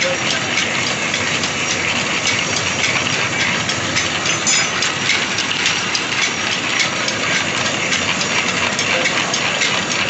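Belt-driven pillar drill press running steadily while its twist drill bores through a steel bar.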